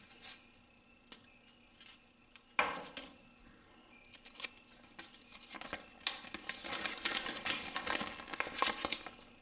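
Packaging being handled and opened, crinkling and rustling. Quiet at first, then a sudden crackle about two and a half seconds in and denser, busier crinkling through the second half.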